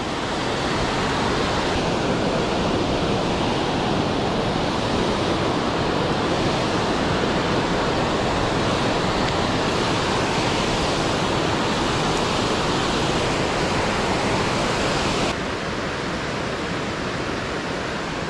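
Water pouring over a dam spillway, a steady loud rush. About fifteen seconds in it cuts suddenly to a quieter, softer rush of the creek flowing below.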